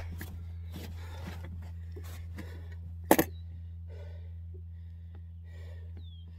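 A steady low hum with scattered light knocks, and one sharp, loud thump a little after three seconds in.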